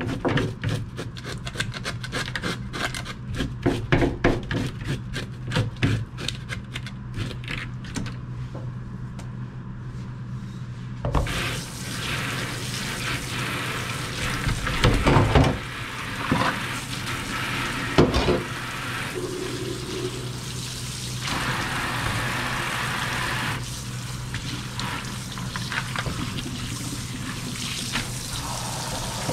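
Knife scraping the scales off a rockfish in quick repeated strokes, then, about eleven seconds in, a tap running and splashing over the fish in a steel sink, with a few knocks as the fish is handled.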